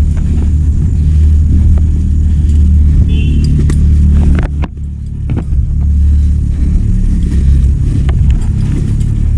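An engine running steadily with a low, loud rumble, easing off briefly about halfway through, with a few light clicks and knocks over it.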